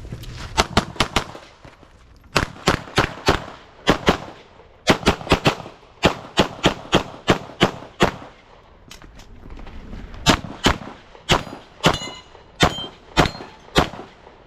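Semi-automatic pistol fired in quick strings of two to six shots, with short pauses between the strings as the shooter moves between positions.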